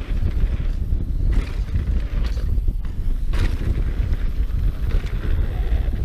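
YT Jeffsy trail mountain bike rolling fast down a dirt trail: wind buffets the action camera's microphone with a constant low rumble over tyre noise, and a few sharp clatters come from the bike going over bumps.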